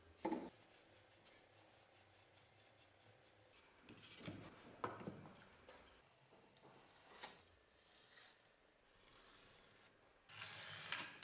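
Faint bench-work sounds: a sharp knock just after the start, short scrapes a few seconds in, and near the end about a second of scratching as a pencil is drawn along a steel ruler on a pine board.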